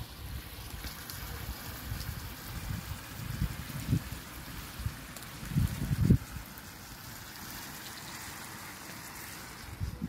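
Wind buffeting the microphone in irregular gusts, strongest about four and six seconds in, over a steady hiss.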